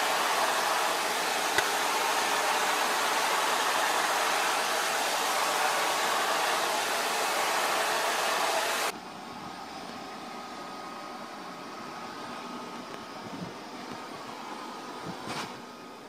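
A vacuum cleaner runs with a steady, loud suction noise. About nine seconds in, the sound drops abruptly to a quieter steady hum with a faint whine.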